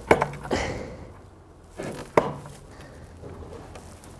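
Flint being pressure-flaked with a pointed tool against a wooden anvil: sharp clicks and snaps as small flakes break off the flint's edge, a few at irregular intervals, the loudest about two seconds in.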